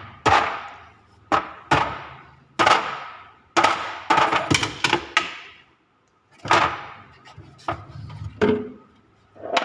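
Repeated sharp metal strikes, roughly one a second, each followed by a short ringing decay, with a brief pause a little past the middle.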